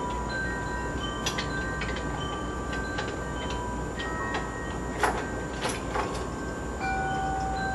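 Light clinks and taps of metal swing-frame parts and a wrench being handled, several of them leaving short ringing tones at different pitches, over a steady background hiss.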